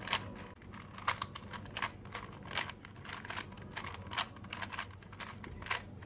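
Plastic 3x3 Rubik's cube being turned by hand, its layers clicking and clacking irregularly, about two or three turns a second.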